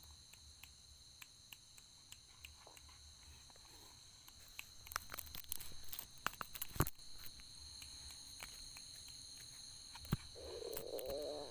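Steady high-pitched chirring of night insects such as crickets, with scattered scuffs and taps on a dirt path from someone moving and working a snake hook, two sharper taps standing out. A short voice sound comes near the end.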